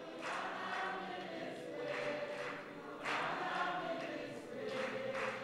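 A congregation singing together in a worship chorus, many voices holding sustained notes between the leader's sung lines.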